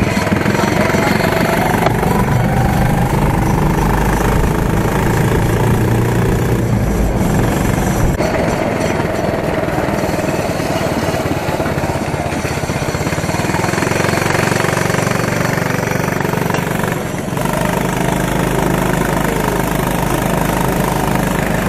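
Quad bike engine running steadily as it tows a train of open carriages along a road, with a fast, even pulse.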